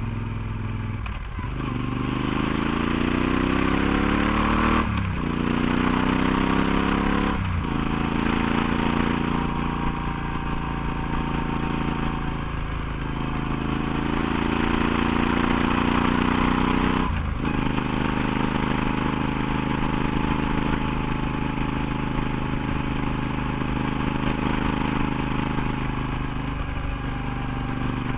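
Yamaha XT1200Z Super Ténéré's parallel-twin engine through a LeoVince slip-on exhaust with its dB-killer fitted, pulling the bike uphill. The note climbs as it accelerates and breaks off sharply at each gear change, about 1, 5, 7, 13 and 17 seconds in, then runs at a fairly steady pitch.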